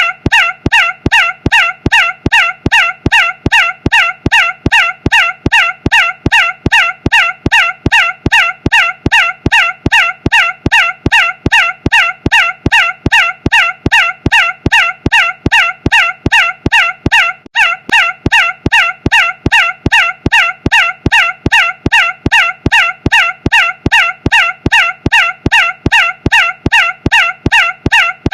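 A short, loud, pitched squawk repeated at an even rapid rate, about three a second, identical each time as in a looped recording, with one brief hitch about two-thirds of the way through.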